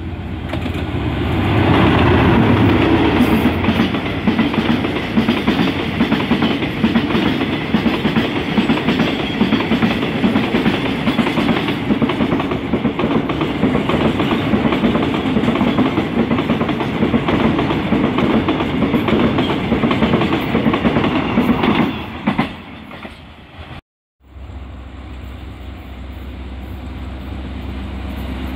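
A diesel-hauled train of oil tank wagons rolls past close by, a dense, steady rumble and rattle of wheels on the rails. The sound drops away and cuts out about three-quarters of the way through. Then another diesel locomotive is heard approaching, its engine note growing louder.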